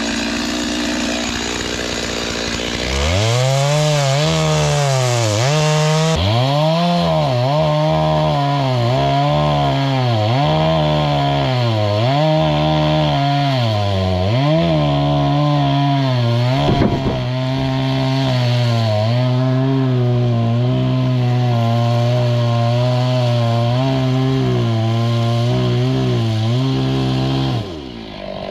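Two-stroke chainsaw cutting logs, coming in loud about three seconds in. Its pitch sags and recovers about once a second as the chain bites, then holds steady, and it stops shortly before the end.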